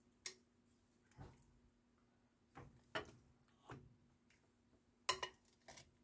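Faint, scattered clicks and taps of metal kitchen tongs against a glass mixing bowl and a metal roasting pan as raw chicken breasts are lifted and laid in, about seven in all, the loudest about five seconds in.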